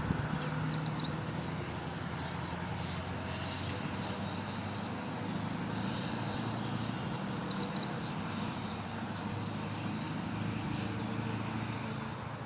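A small songbird sings a short, high-pitched phrase of quick notes twice, once right at the start and again about seven seconds in, over steady background noise.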